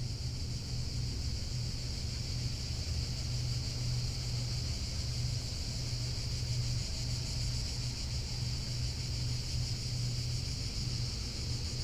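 A steady low drone with a constant high, hissing shimmer above it, unchanging, with no distinct events.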